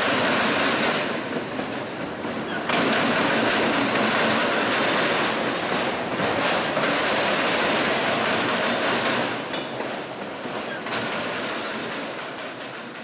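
Freight train of autorack cars rolling past close by: a steady rush and rumble of steel wheels on the rails, dipping twice and swelling back as the cars go by.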